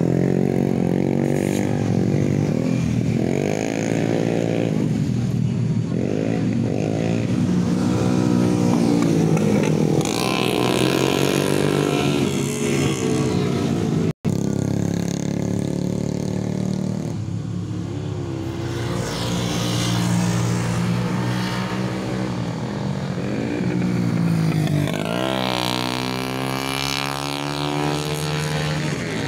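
Several motorcycles racing through a hairpin bend, their engines revving up and falling away again and again as the riders brake and accelerate past one after another. The sound drops out for an instant about halfway, and near the end one engine climbs steadily in pitch as a bike accelerates out of the bend.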